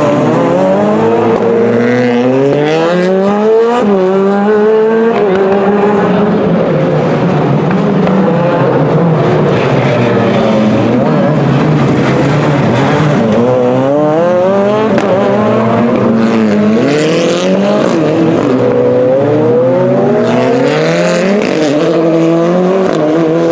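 Rally car engines revving hard, with several cars overlapping. The pitch climbs steeply through each gear and drops back at every shift or lift off the throttle, again and again.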